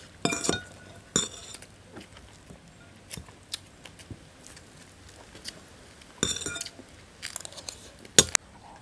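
Scattered clinks of dishes and utensils with chewing and crunching of crab shell during a meal of tamarind-roasted crab: short clusters of ringing clinks about a third of a second in, a second in and around six seconds, and two sharp clicks near the end.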